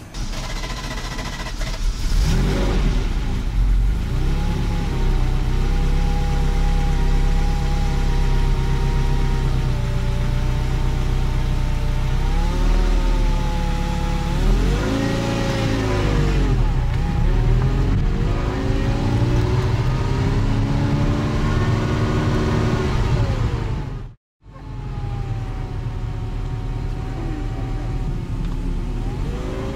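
Ferrari 308 QV's transverse mid-mounted 3.0-litre four-valve V8 running as the car pulls away and drives. Its pitch rises and falls several times as it accelerates and lifts off.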